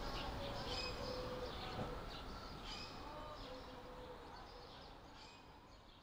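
Birds chirping and calling, fading out gradually.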